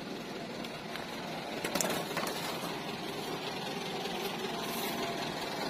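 Truck engine idling steadily with a fast, even rattle, with a few sharp clicks about two seconds in.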